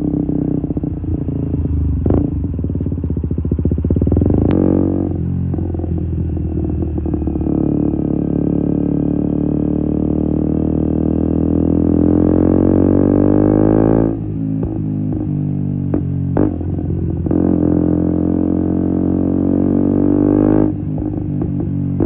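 KTM Duke 125's single-cylinder engine through an Akrapovic exhaust with a decat link pipe, pulling hard with its pitch climbing steadily, then dropping sharply as the throttle shuts twice. Each time the throttle closes, the exhaust crackles and pops on the overrun.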